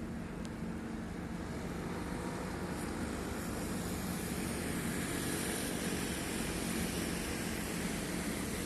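Boat engine running with a steady low hum, under a rushing noise that slowly grows louder from about three seconds in.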